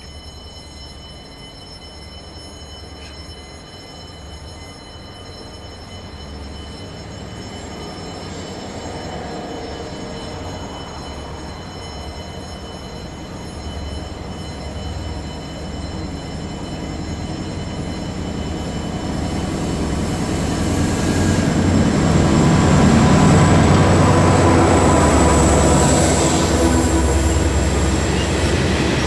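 Freight train approaching and passing close by, growing steadily louder from a distant rumble until the locomotive and the covered wagons roll past near the end, with a high steady whine from about two-thirds of the way in.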